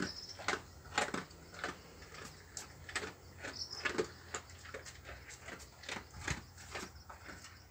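A dog crunching dry kibble, picked up piece by piece from a tiled floor. The crisp crunches and clicks come irregularly, two or three a second.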